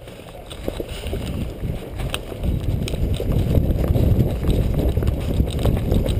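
Running footsteps thudding on a dirt trail, with low rumble from movement and wind on a body-worn camera's microphone. The thudding grows louder about two seconds in as the pace picks up.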